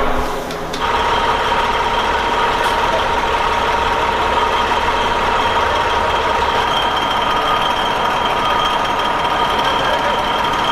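A large engine idling steadily, with a steady high whine over its rumble.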